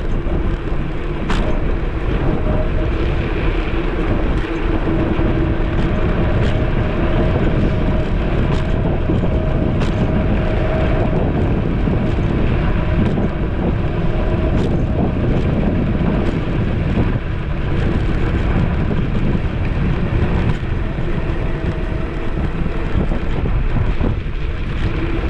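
Wind rushing over the GoPro microphone and road noise while riding a Caroma P5 electric scooter, with no engine rumble. A faint whine comes and goes, and there are a few light clicks.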